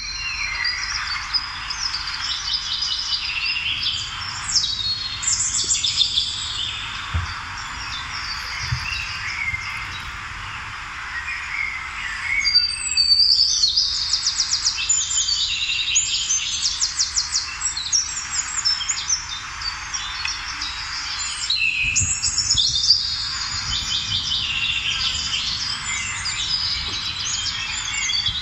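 Many small birds chirping and singing together, with overlapping chirps and rapid trills, some of them dense bursts about halfway through and again later.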